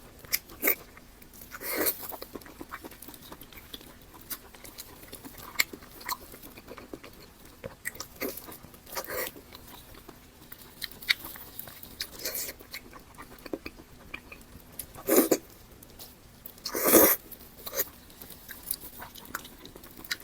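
Close-miked eating: chewing and biting with small wet mouth clicks, and a few louder crunching or slurping bursts spread through.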